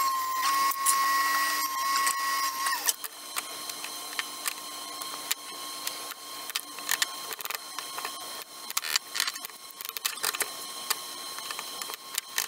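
Pneumatic nailer firing into wood in a quick, irregular run of sharp clicks over a faint steady hum. For about the first three seconds a steady high whine sounds before the clicking sets in.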